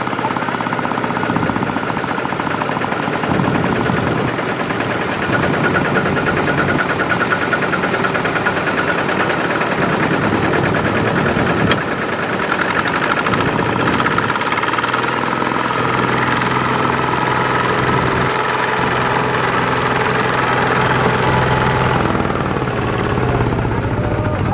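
Single-cylinder diesel engine of a two-wheel walking tractor running under load with a rapid, steady knocking beat, hauling a loaded rice trailer through sticky mud.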